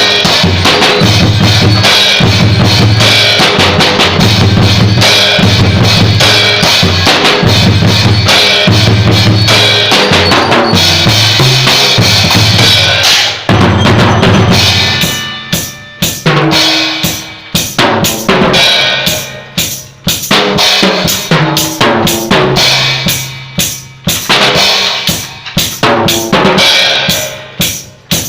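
Drum kit played loud, with kick, snare and cymbals. For the first half it plays a dense groove over a low bass line. From about halfway it breaks into separate hits and fills with ringing cymbal crashes and short gaps between them.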